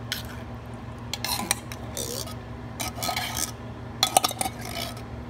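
A metal fork scraping and clinking against a tin can and a foil pan as condensed cream of mushroom soup is worked out of the can. It comes in several short bouts, with a few sharp clinks about four seconds in the loudest.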